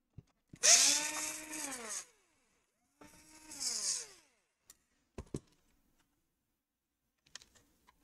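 Cordless electric screwdriver run twice, each run a motor whine that rises in pitch and then falls, backing out the screws that hold a laptop's cooling fan. A few light clicks follow.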